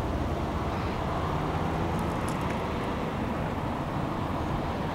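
Steady low rumble of vehicle and road noise, even throughout, with a few faint ticks about two seconds in.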